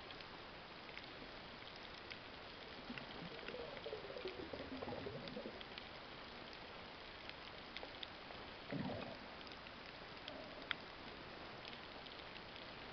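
Faint underwater reef ambience: a steady hiss peppered with short, sharp clicks and crackles. A low sweeping sound swells about four seconds in and a brief one comes near the ninth second.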